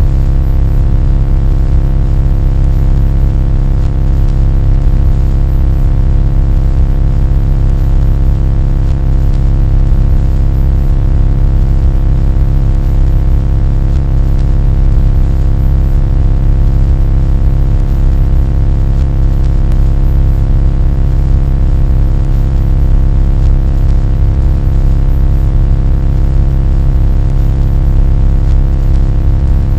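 A loud, steady, low rumbling drone with several steady hum tones layered above it, unchanging throughout.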